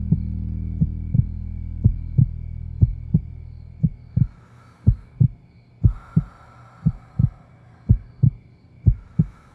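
Heartbeat sound effect: a steady double thump, lub-dub, about once a second. A low drone under it fades away over the first four seconds, leaving the beats nearly alone.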